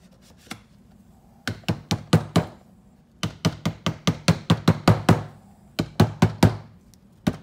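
Rubber mallet tapping the metal lids of epoxy adhesive cans shut: sharp knocks in quick runs of about five a second, a short run about a second and a half in, a longer one of about a dozen in the middle, and more near the end.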